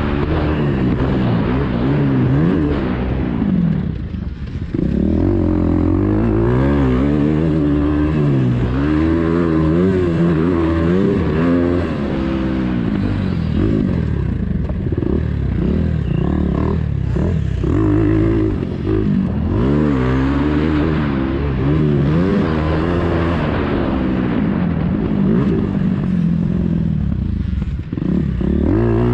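KTM 350 EXC-F's single-cylinder four-stroke engine heard on board while ridden hard, revving up and down with the throttle so the pitch keeps rising and falling. About four seconds in the throttle is briefly chopped and the engine drops in level before pulling hard again.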